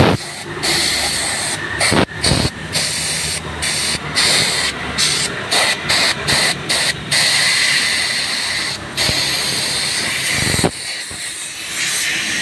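Compressed air hissing out through the valve of a snow foam wash machine, cut off and let go again many times in short bursts, then running steadily for a few seconds before dropping to a quieter hiss near the end.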